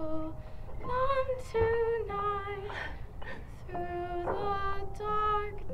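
A voice singing a slow melody in a series of held notes, one note after another.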